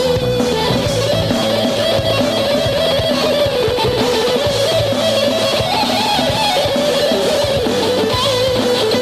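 Electric guitar playing a melodic lead line with gliding, bent notes over a live rock band's bass and drums.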